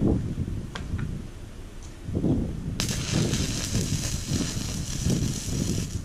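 Stick-welding arc from a ZENY 160-amp DC inverter welder on 110 V, struck a little under three seconds in and then crackling and sizzling steadily as a fillet bead is run, with a short break near the end. An irregular low rumbling noise runs beneath it throughout.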